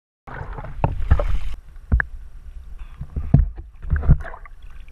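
River water sloshing and splashing around a GoPro held at the surface, with an uneven run of low thumps and knocks as the water hits the camera.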